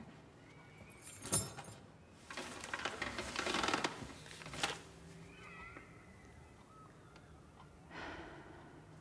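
A person shifting and sitting up on a bed: a sharp knock, then a stretch of bedding rustling and another click a few seconds in, with a softer rustle near the end. Faint high wavering chirps are heard in the background about halfway through.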